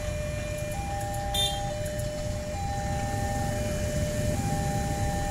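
Railway level-crossing warning alarm sounding a two-tone hi-lo signal, each tone held about a second, over the low rumble of a passenger train running on the rails. A brief high squeal about a second and a half in.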